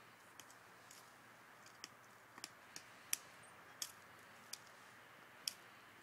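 Quiet background with about ten irregular, sharp clicks spread over a few seconds. The loudest comes a little past three seconds in.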